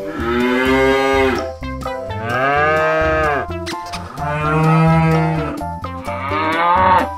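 Cattle mooing: four long moos, each about a second, with the pitch dropping at the end of each.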